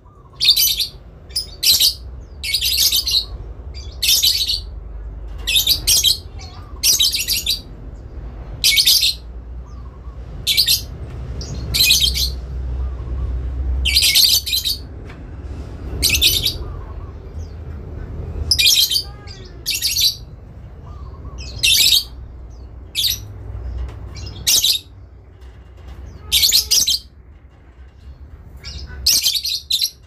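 Lovebird 'ngekek' song: repeated shrill, rapid chattering calls, each lasting under a second, coming about one every second or two.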